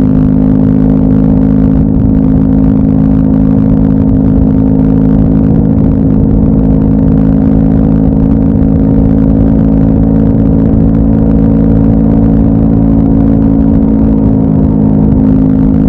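Honda Monkey 125's single-cylinder four-stroke engine running at a steady cruising speed, with rushing wind and road noise on the bike-mounted camera.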